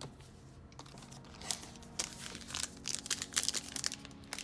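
Foil wrapper of a baseball card pack crinkling as it is torn open, with a dense run of crackles starting about a second and a half in.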